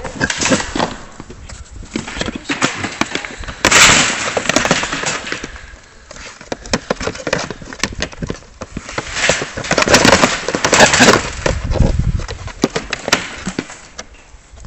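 Young feral pigs scrambling inside a wire-mesh cage trap: a run of rattles, knocks and scuffles against the mesh, in bursts that are loudest about four seconds in and again around ten to eleven seconds.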